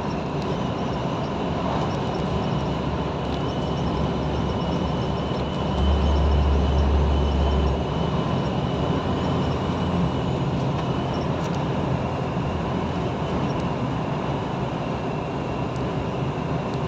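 Steady road and engine noise heard inside a truck cab while driving on the highway: an even drone of engine and tyres, with a deeper low rumble for about two seconds midway.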